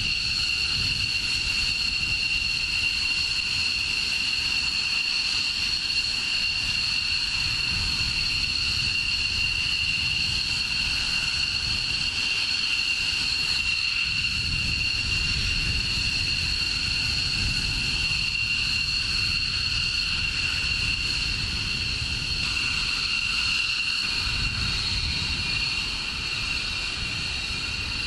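Steady high-pitched jet turbine whine, two held tones that stay level, over a low rumble that swells and fades.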